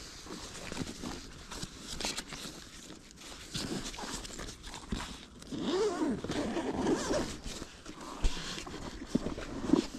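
A zipper being worked on clothing or a bag, with rustling and scratchy zipping sounds that are loudest about halfway through.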